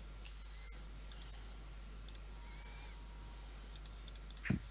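Faint clusters of computer keys clicking over a steady low hum, with one short thump near the end.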